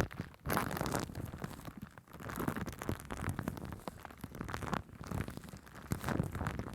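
Shaving cream worked over a microphone: a close, dense crackle and squish of foam, swelling and easing, with brief lulls about half a second and two seconds in.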